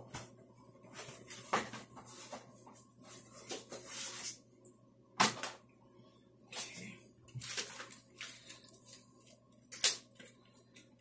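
Plastic packaging crinkling and plastic shower curtain hooks clicking against each other as they are handled, with irregular small clicks and a few sharp ones standing out.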